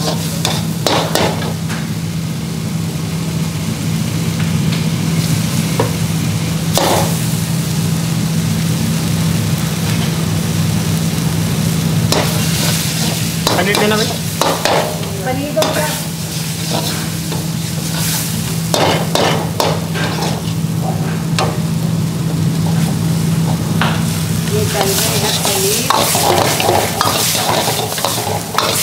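Steel ladle scraping and stirring a thick paneer masala gravy in a wok over a gas burner, the gravy sizzling, with the scraping coming in irregular bouts. A steady low hum runs underneath.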